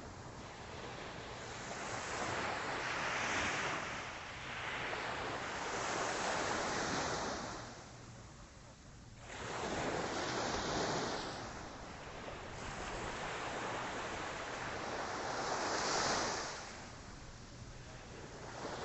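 Small Atlantic waves breaking on a beach at low tide and washing up the sand, the surf swelling and fading in four surges.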